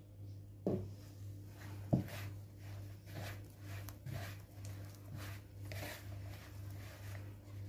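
Hands kneading a soft yeast dough of flour, water and egg in a plastic bowl: soft, rhythmic squishing and rubbing strokes, with two sharp knocks in the first two seconds. A steady low hum runs underneath.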